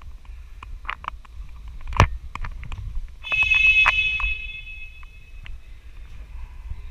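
Airsoft pistol shots snapping one at a time, the sharpest about two seconds in and a quick run of them a little after three seconds. Over that run a shrill steady tone sounds for about two seconds and then cuts off.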